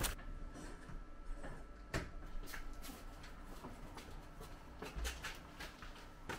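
A few brief light knocks and rustles in a quiet room, over a faint steady hum.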